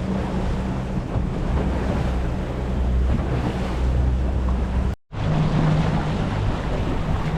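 Boat engine running steadily at trolling speed, with water rushing and wind buffeting the microphone. The sound drops out completely for a split second about five seconds in.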